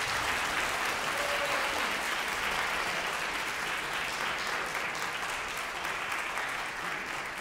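Concert-hall audience applauding steadily, many hands clapping, easing off slightly near the end.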